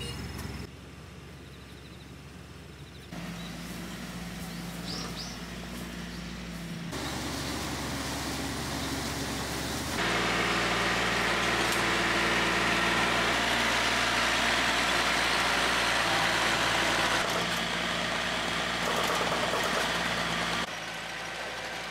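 Diesel engine of a small tracked Iseki rice combine harvester running steadily as the machine is driven along. It is quieter in the first few seconds and loudest around the middle, with the level stepping up and down abruptly several times.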